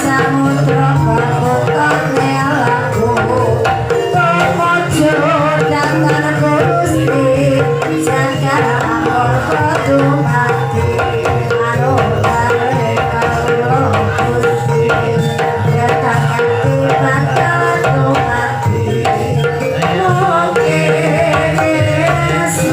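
Banyumasan gamelan music for an ebeg horse dance, led by kendang hand drums.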